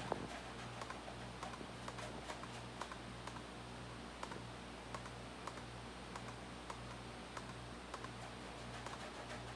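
Laptop keyboard clicking: sparse, irregular keystrokes over a low, evenly pulsing hum.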